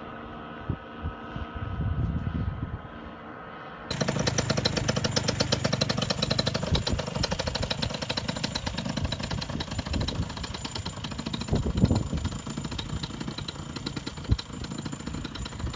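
Paramotor trike's engine idling with a rapid, even pulse; it comes in suddenly and loud about four seconds in, after a fainter, steady engine hum.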